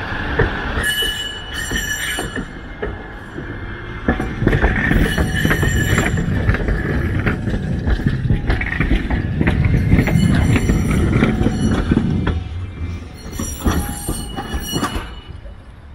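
Low-floor Kagoshima City tram passing close by on its track: the rumble of wheels and running gear swells from about four seconds in and fades after about twelve. Thin high squealing tones and light clicks from the wheels come in the first couple of seconds and again near the end.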